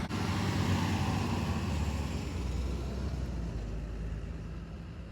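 Motor vehicle running: a steady low rumble with road noise.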